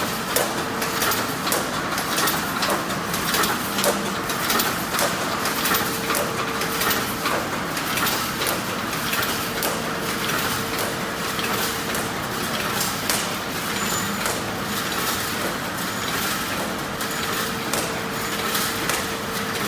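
Automatic wire mesh welding machine running: a rapid, irregular train of sharp clicks and clacks over steady machine noise, with a thin hum that comes and goes.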